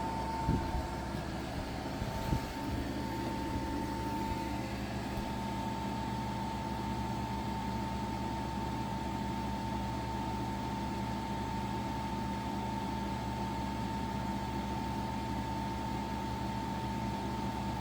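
EcoFlow Wave portable air conditioner running in cooling mode with its fan on full: a steady blowing drone with a low hum and a thin, steady whine. A couple of light knocks in the first few seconds.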